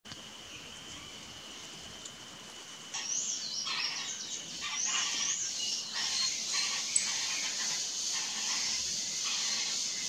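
Saffron finch chirping: a run of quick, high notes that rise and fall, starting abruptly about three seconds in, over a steady high-pitched hiss that carries on to the end; before that only a faint steady high tone.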